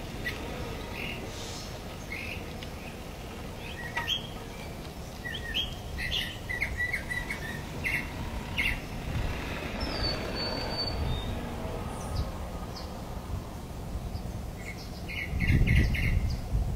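Birds chirping and calling in short scattered notes, with one higher whistled note about ten seconds in, over a steady low rumble that grows louder near the end.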